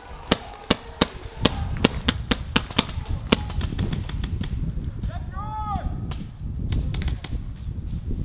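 Paintball markers firing: about a dozen sharp pops in quick, uneven succession over the first three and a half seconds, over a low rumbling noise. Around five and a half seconds in there is a brief call that rises and falls, like a distant shout.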